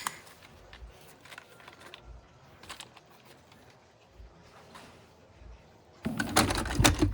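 Faint scattered clicks and taps of plastic toys being handled, then a louder burst of rattling clatter about six seconds in.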